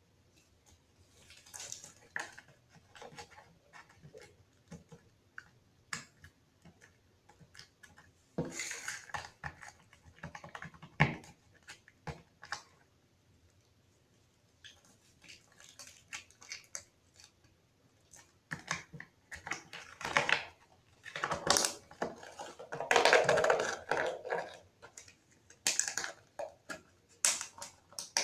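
Slime being squeezed and kneaded by hand, with irregular sticky clicks and crackles and a few louder squelching bursts.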